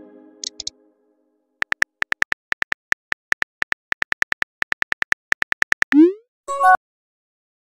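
Texting-app sound effects: the tail of a fading chime, then a rapid run of synthetic keyboard typing clicks, about five a second, as a message is typed. Near the end comes a rising whoosh of the message being sent and a short blip that steps up in pitch.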